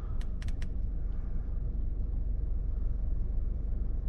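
Volkswagen Golf GTI Mk7's turbocharged four-cylinder engine idling, a steady low rumble, running after a fresh ECU flash. Three or four short clicks sound in the first half second.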